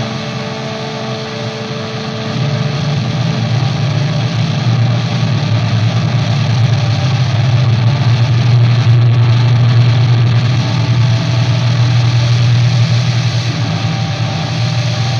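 Solo electric guitar and effects drone improvisation: a dense, noisy wall of sound over a heavy low hum, swelling louder after about two seconds and then holding steady.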